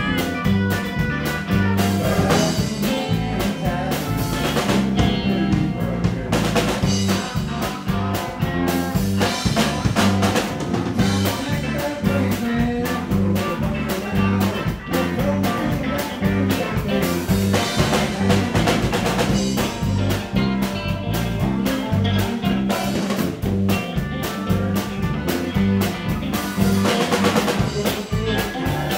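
Live band playing a blues-tinged country number: electric guitars and bass guitar over a drum kit keeping a steady beat.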